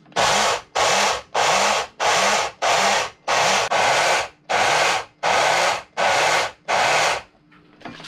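A small personal blender grinding oat flakes into powder in short pulses: about a dozen loud bursts of motor and rattling flakes, roughly two a second. The motor's pitch rises as it spins up at the start of each pulse.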